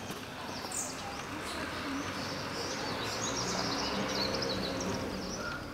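Small birds chirping, many quick high notes in a busy run, over a steady background hiss.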